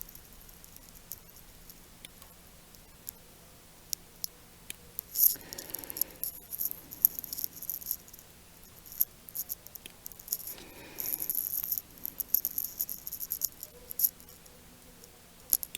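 Scattered light clicks and small metallic rattles from hand tools and wires being handled on a workbench, with two short bursts of rattling about five and eleven seconds in.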